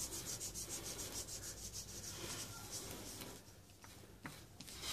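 A hot plastic-welding tip rubbing quickly back and forth over a cracked plastic motorbike panel, melting cable-tie plastic into the crack. It makes a faint, fast, scratchy rubbing that eases off about three and a half seconds in.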